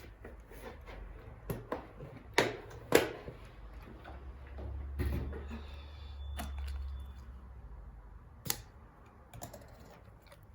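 Scattered sharp knocks and clicks of small objects being handled and set down, with a low hum for a few seconds in the middle.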